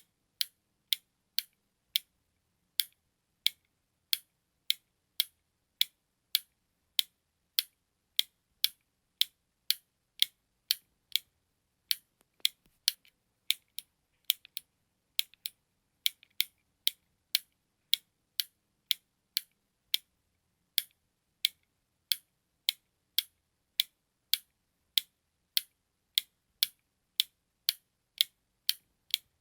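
Button clicks, short and sharp, repeating at about two a second in a steady tick-tock rhythm.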